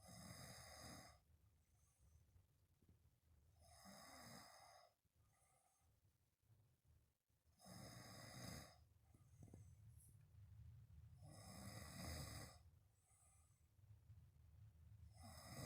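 A person snoring while sleeping on their back, a position the uploader blames for the snoring. A rasping snore comes about every four seconds, each lasting about a second, with a softer breath between snores.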